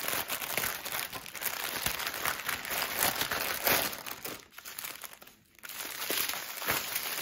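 Clear plastic packaging crinkling as packs of diamond-painting drill bags are handled, with a short lull a little past the middle.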